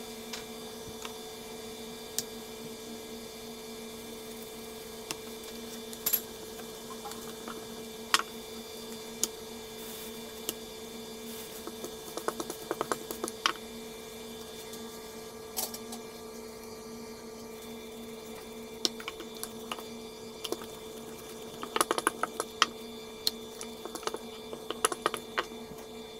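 Scattered light clicks and taps from rolling out paratha dough with a wooden rolling pin on a board, some coming in quick clusters, over a steady hum.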